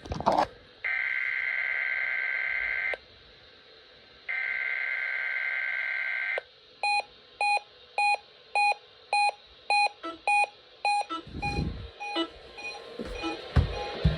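Emergency Alert System SAME header data tones: two bursts of shrill two-pitch digital warble, each about two seconds with a pause between, encoding the start of a required weekly test. Then electronic beeping, about two beeps a second for some four seconds, and a few low thumps near the end.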